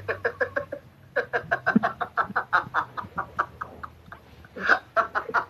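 A man laughing hard in a long run of quick, rhythmic bursts, about five a second, with a short lull about four seconds in before a louder burst and more laughter.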